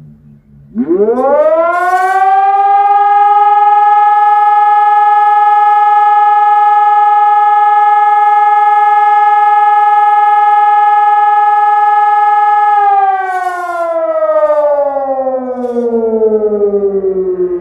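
ECI DT 1200 civil-defence siren giving one blast of the fire-alarm signal. Its pitch rises quickly about a second in, holds one steady loud tone for about twelve seconds, then slides down as it winds down near the end.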